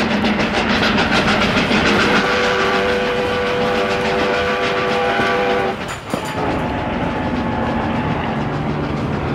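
Steam train running with a fast, even clatter, and the locomotive's whistle sounding a chord for a few seconds from about two seconds in. After an abrupt change near six seconds, a duller, steady rumble of the moving train continues.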